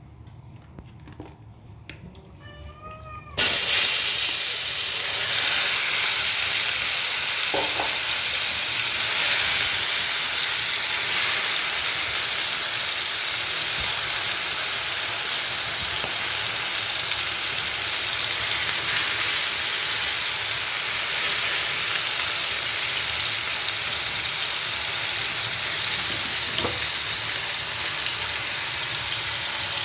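Chicken frying in a hot pan: a loud, steady sizzle that starts suddenly about three seconds in.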